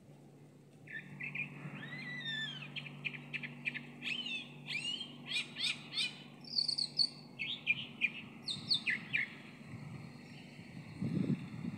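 Chalk-browed mockingbird singing a varied song: quick phrases of sweeping, rising and falling notes and fast repeated notes, one after another, stopping about nine seconds in.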